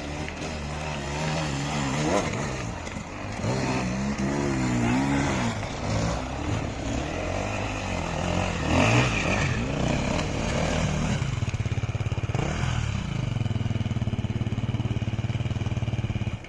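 Enduro dirt bike engine revving up and down repeatedly as the bike climbs a rocky, rooty forest trail. Near the end it holds a steady, higher engine note.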